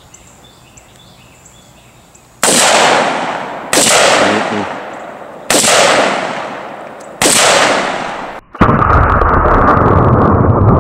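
Four rifle shots, each a sharp crack with a trailing echo, a second or two apart, beginning about two and a half seconds in. Near the end a binary exploding target goes off with a louder boom that carries on as a long rumble.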